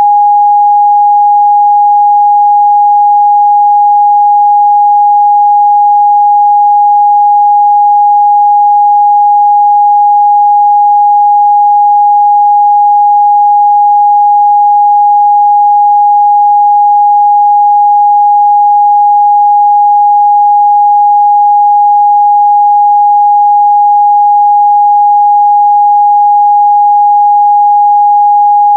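Steady 824 Hz sine-wave test tone, a single pure pitch held unchanged at constant loudness.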